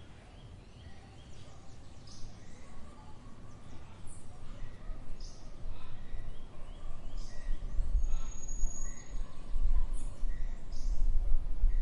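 Outdoor garden ambience: birds chirping in short scattered calls, with one high thin whistled note about two-thirds of the way through. A low rumble underneath grows louder over the second half.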